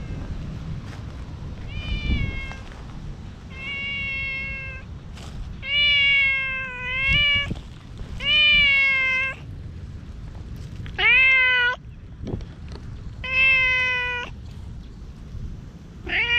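A domestic cat meowing again and again, about seven long meows a couple of seconds apart: an insistent, pleading call for attention.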